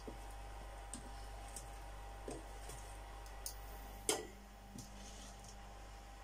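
Light, scattered clicks and knocks of kitchen utensils being handled while frying pancakes, the loudest a knock about four seconds in, over a low steady hum.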